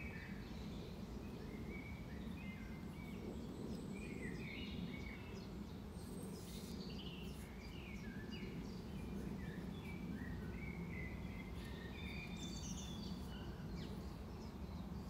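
Faint birds chirping in the background: many short, gliding chirps throughout, over a steady low background hum.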